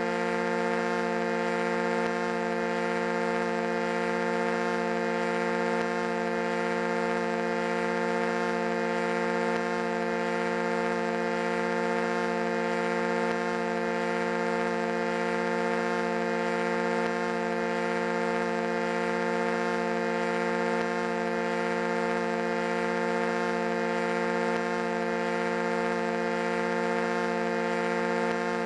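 Foghorn blowing one long, unbroken note, steady in pitch and loudness, low and rich in overtones.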